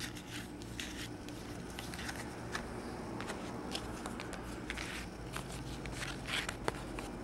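Trading cards being set down and slid into place on a tabletop: scattered light clicks and taps over a faint steady low room hum.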